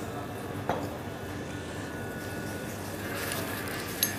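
Low steady background hum, with a light click about a second in and another near the end.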